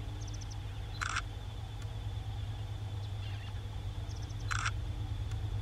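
Low, steady rumble of an approaching pair of GE C30-7 and C36-7 diesel-electric freight locomotives, growing slightly louder. Over it a bird calls twice, each time a quick run of small high ticks followed by a short harsh note.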